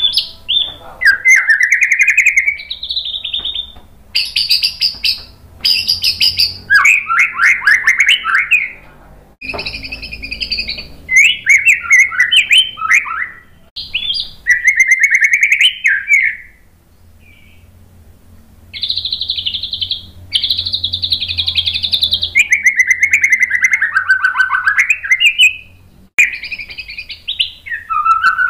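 White-rumped shama singing a loud, varied song of clear whistles and fast chattering trills, in phrases of a second or two, with a pause of about two seconds midway.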